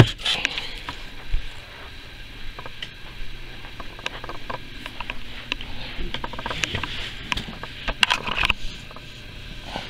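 Handling noise from a plush toy and the camera being moved about by hand: scattered soft rustles and light clicks over a faint low hum, with a sharp knock at the start and a small cluster of clicks near the end.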